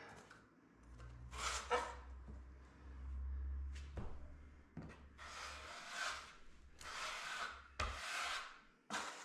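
Steel filling knife scraping jointing filler off a board and spreading it along plasterboard joints: a series of short rasping strokes, coming faster in the second half, with a low rumble in the first few seconds.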